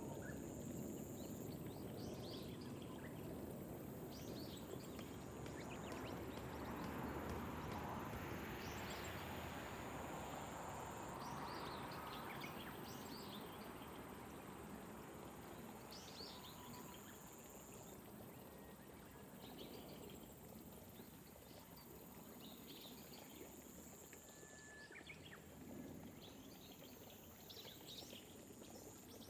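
Gentle rain over rice paddies, a soft steady wash that swells for a few seconds about a quarter of the way in, with birds chirping here and there and a high, thin insect buzz that starts and stops in stretches.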